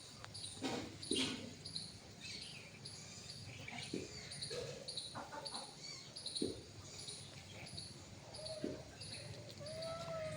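Faint animal sounds: a few short squeaky calls, two of them near the end, over a high chirping that repeats about twice a second, with scattered small clicks.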